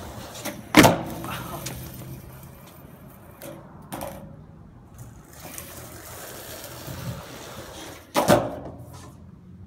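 Skateboard tricks on concrete: a loud crack of the board's tail popping and the board slapping down about a second in, a couple of lighter clacks in the middle, and another loud pop and landing near the end, echoing under the concrete overhang.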